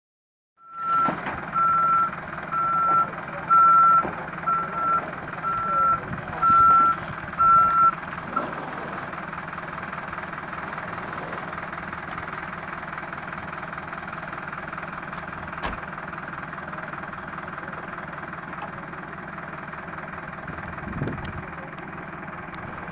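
A heavy vehicle's reversing alarm beeping about once a second over a running truck engine. The beeping stops about eight seconds in, and the engine keeps running steadily.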